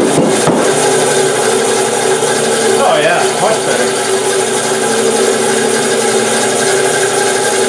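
Bandsaw cutting through a pear-wood log, with the steady rasp of the blade in the wood over the saw's running hum. The pitch wavers briefly about three seconds in.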